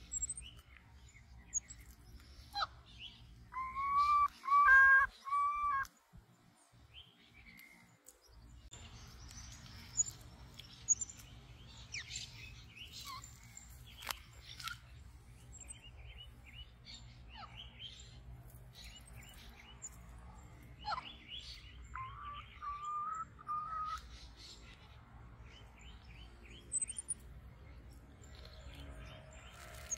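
High chirping and whistling calls, scattered throughout. The loudest is a run of steady whistles about four seconds in, and a quieter run of short rising whistles comes about twenty-two seconds in, over a low steady rumble.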